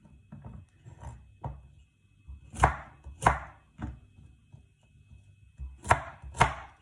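Knife slicing zucchini, the blade knocking against the cutting board in an uneven series of cuts, with two loud strikes in the middle and two more near the end.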